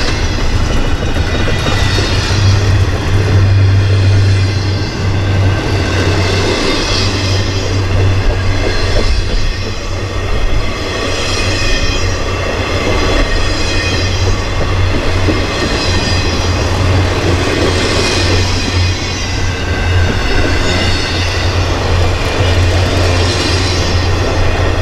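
Double-stack intermodal train of container well cars rolling past close by: a steady rumble of steel wheels on rail. A higher hiss of wheel noise swells and fades every few seconds as the cars go by.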